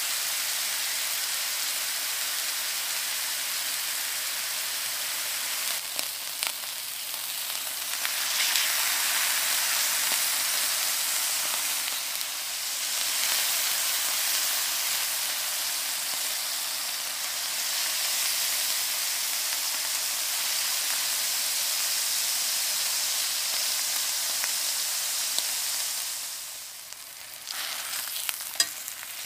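Slabs of ground lamb frying in hot oil in a stainless steel pan, a steady sizzle that dips briefly around six seconds and again near the end. Near the end, a fork and spatula click against the pan as the pieces are turned.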